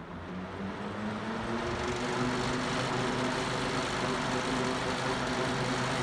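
1971 Galaxy Model 3700 12-inch five-blade box fan coming up to speed on high. The motor hum rises in pitch and the fan grows louder over the first two seconds, then it runs steadily with a rush of air. On high it has a bad vibration.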